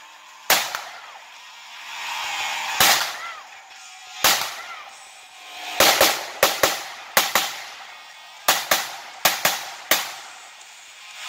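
Pistol fire in a competition stage. First come single shots about a second and a half apart, then from about halfway through, quick pairs of shots fired a fraction of a second apart.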